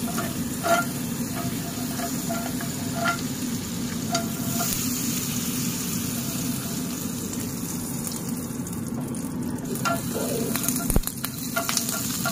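Butter sizzling as it melts in a metal pancake ring in a hot frying pan, steady throughout, with a few light clicks and a sharp knock near the end.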